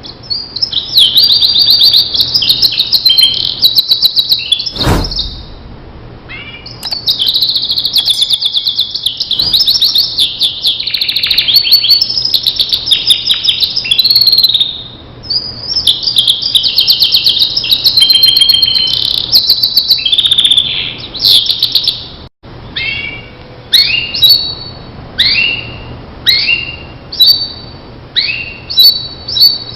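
Starblue canary singing: long, rapid trilled phrases broken by short pauses, then a run of separate short falling notes before the rapid song starts again near the end. A single knock about five seconds in.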